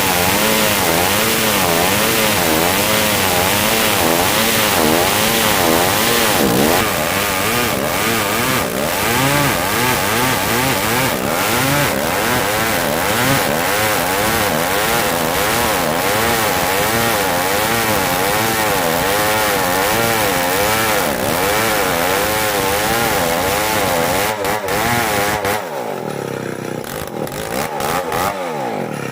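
Old two-stroke chainsaw running at high revs while cutting dry merbau hardwood. Its engine note rises and falls over and over. Near the end it eases down lower and quieter, then picks up again.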